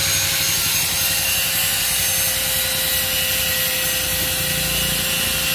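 Small angle grinder running under load, its disc cutting through a thin metal rod: a steady high motor whine over a continuous grinding hiss.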